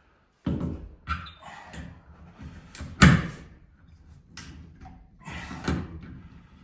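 Several heavy knocks and bangs from building work inside a steel shipping container, with the loudest bang about three seconds in and a pair near the end, each ringing briefly.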